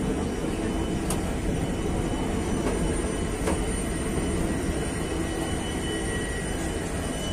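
Passenger train coaches rolling out of a station: a steady rumble of wheels on rail, with two sharp clicks from the track about one and three and a half seconds in.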